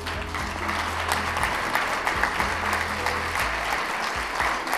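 A roomful of guests applauding, a steady dense clapping, over soft background music.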